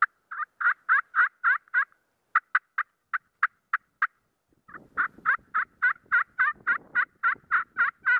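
Turkey yelping, close and loud: a run of about six yelps, then a string of shorter, clipped notes, then a longer run of about a dozen yelps at three to four a second.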